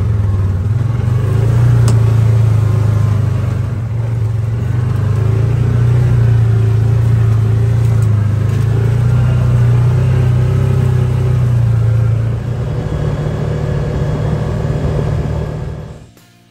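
UTV engine running steadily under way as the machine is driven along a trail, a loud low drone that shifts slightly about twelve seconds in and cuts off abruptly just before the end.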